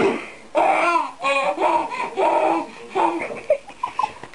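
A baby laughing hard in a string of short, high-pitched bursts, one after another.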